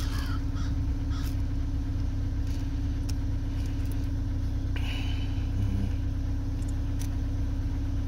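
Ford Fusion's 2.5 L Duratec four-cylinder idling steadily, running on its replacement PCM, with a few light clicks over the engine.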